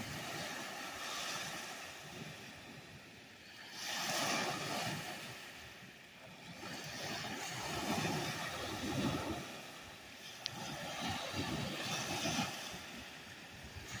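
Small Lake Huron waves breaking and washing up on a sandy, pebbly shore, the surf swelling and ebbing every few seconds.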